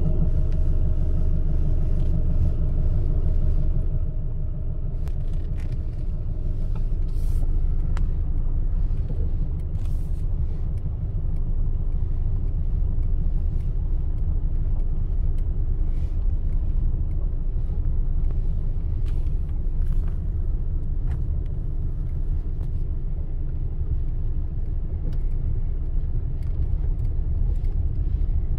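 Car engine and tyres making a steady low rumble, heard from inside the cabin as the car creeps along a dirt farm track, with a few faint clicks and knocks scattered through it.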